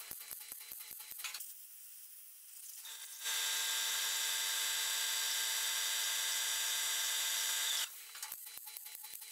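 MIG welder crackling in quick bursts as tack welds go onto the steel body panel. About three seconds in a loud, steady machine whine starts and runs for about four and a half seconds before cutting off suddenly, and the welding crackle comes back near the end.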